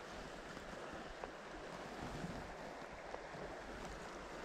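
River water flowing: a steady, even rush, with a couple of faint clicks.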